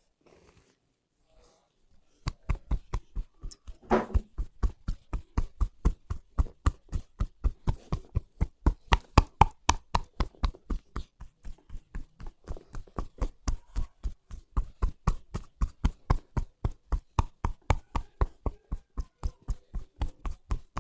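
Percussive hand massage: rapid, even strikes of the masseur's hands, about four to five a second, beginning about two seconds in.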